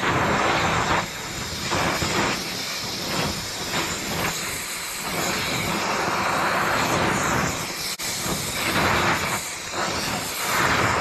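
Cutting torch used as a heating torch, its flame hissing against a cast bearing cap and swelling and easing every second or two as it is played over the part. It is heating the cap to free a rusted-in bearing race.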